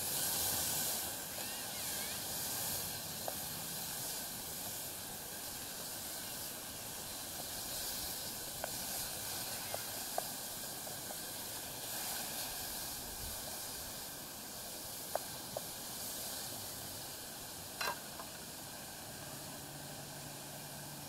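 Wood campfire burning with a steady hiss, broken by a handful of sharp, scattered crackles and pops.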